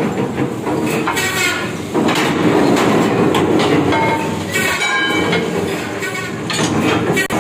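Metal-turning lathes running in a workshop, a steady mechanical clatter, with ringing clanks of steel rim plates a few times.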